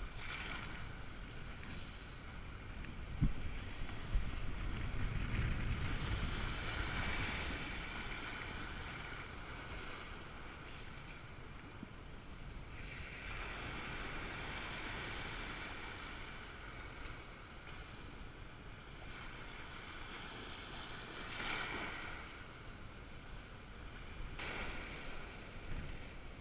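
Small waves breaking and washing through shallow surf on a sandy beach, the hiss swelling every few seconds as each wave comes in. Wind buffets the microphone in a low rumble a few seconds in.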